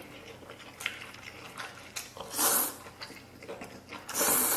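A person slurping noodles from a bowl, with two loud slurps, one about halfway through and one near the end. Small clicks and chewing come between them.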